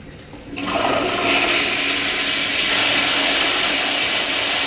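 Kohler toilet flushing: a sudden rush of water starts about half a second in and runs on steadily and loudly.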